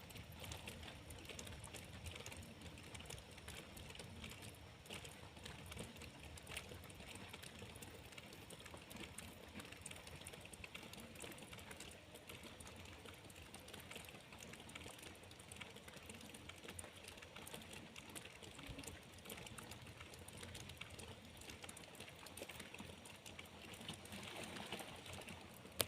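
Light rain falling: a faint, steady hiss dotted with many small drop ticks.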